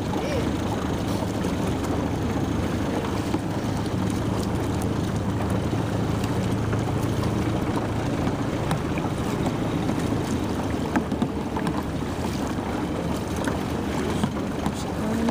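Steady low hum of a motorboat engine running at a constant pace, with wind buffeting the microphone and water noise around the hull.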